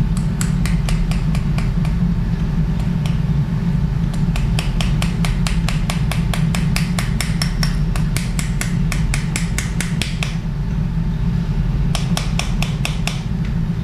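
Surgical mallet tapping the suture-anchor guide to drive the first rotator cuff anchor down into the bone, in three runs of quick sharp taps, the middle run the longest and fastest. A steady low hum runs underneath.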